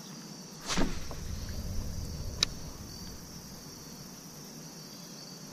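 Crickets chirping in a steady high trill, with a sudden sharp swish-like noise about a second in and a single sharp click a couple of seconds later.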